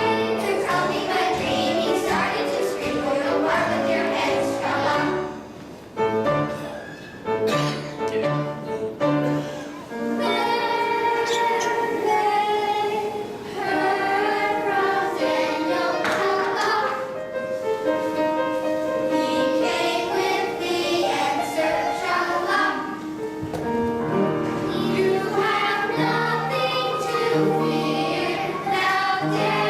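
A choir singing a song with instrumental accompaniment, in the style of Christian worship music.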